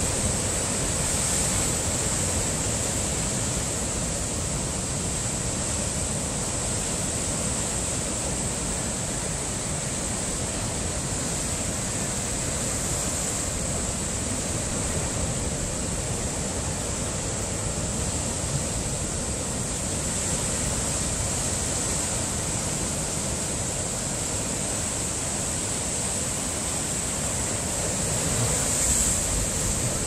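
Heavy ocean surf breaking over coastal rocks and surging through them: a steady rush of white noise that swells slightly near the end.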